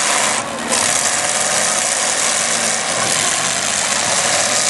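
Demolition derby car engines running loud and steady, with a short dip in level about half a second in.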